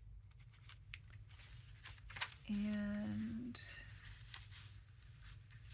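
Paper cards and tags being handled: scattered light rustles and taps of cardstock. About halfway through, a drawn-out spoken "and".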